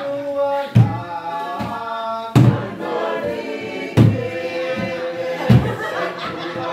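A group singing together in harmony, with loud, sharp thuds about every one and a half seconds from hands beating on a rolled floor mat to keep time.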